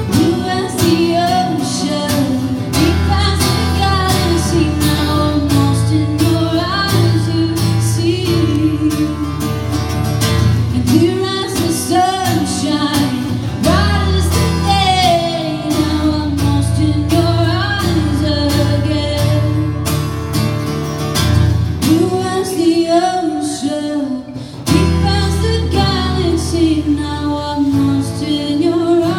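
Live acoustic music: a woman singing over two acoustic guitars strumming chords, with a brief drop in the playing about three-quarters of the way through.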